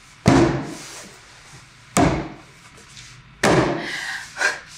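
Three sudden impacts like slams or hits, roughly a second and a half apart, each dying away quickly.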